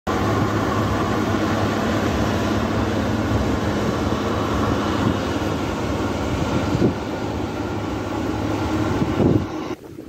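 New Holland CX6080 combine harvester, with its 6.7-litre six-cylinder NEF engine, running steadily while harvesting corn: a loud, even drone of engine and threshing machinery with a constant low hum. It cuts off suddenly near the end.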